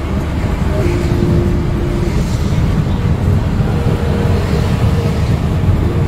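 Road and engine noise inside a vehicle cruising on a motorway: a steady low rumble with a faint hum that shifts pitch a couple of times.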